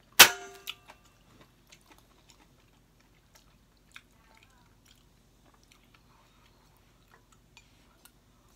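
A single sharp clink of tableware with a brief ring about a quarter second in, then faint scattered ticks of chopsticks and chewing.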